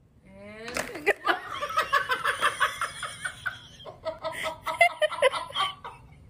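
A person laughing hard in quick, repeated bursts from about a second in, just after a short rising voice.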